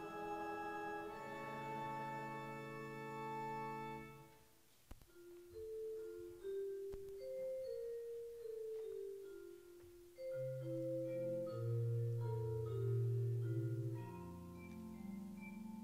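Church organ: a held chord that releases about four seconds in, then after a short pause a slow single-line melody of sustained notes, joined by low bass notes about ten seconds in.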